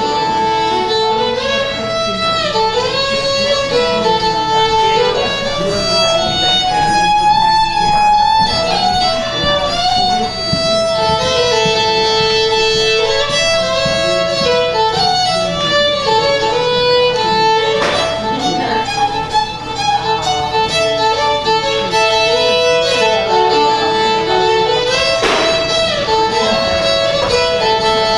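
Solo fiddle bowing a melody, with many notes held for a second or more.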